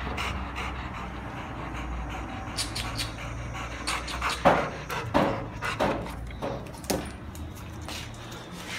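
Large dogs panting close by, with five louder short huffs about half a second apart in the second half.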